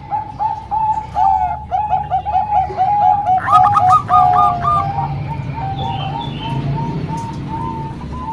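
Several zebra doves (perkutut, Bangkok type) cooing, their quick runs of short repeated notes overlapping. A higher-pitched voice joins about three and a half seconds in.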